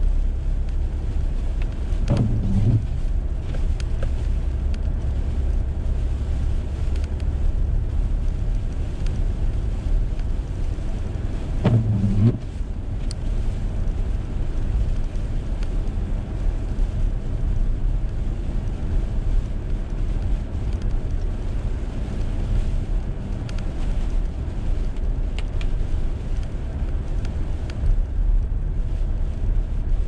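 Steady low rumble of a car's engine and tyres heard from inside the cabin while driving on a snow-covered road. A brief low hum stands out twice, about two seconds in and again about twelve seconds in.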